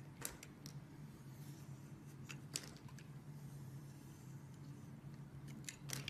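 A utility knife blade cutting into a bar of soap, giving a few crisp cracks and scrapes as slivers break away. The loudest crack comes about two and a half seconds in, and another cluster comes near the end. A steady low hum runs underneath.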